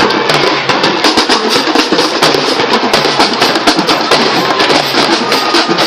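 Marching band drumline playing a fast cadence on snare and bass drums.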